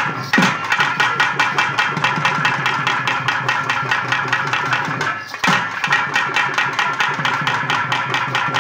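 Live karagattam folk music: fast, steady drumming with a sustained high melody tone over it. The drumming breaks off briefly about five seconds in, then resumes.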